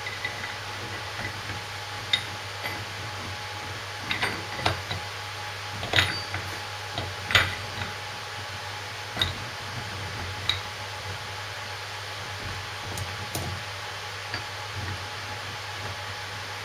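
Irregular metallic clinks and knocks of gear wheels and shaft parts being handled and fitted into an LT76 transfer box casing, loudest around six and seven seconds in, over a steady low background hum.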